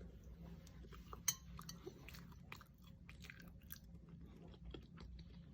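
Faint chewing and biting on a fried plantain snack (unnakaya), with scattered small clicks and one sharper click just over a second in.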